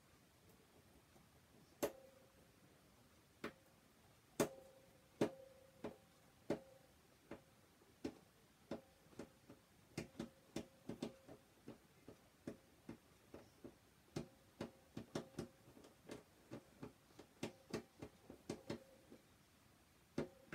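A small screwdriver working a screw on a plastic toy's battery cover: irregular sharp clicks, sparse at first and coming two or three a second from about ten seconds in, some followed by a short ring.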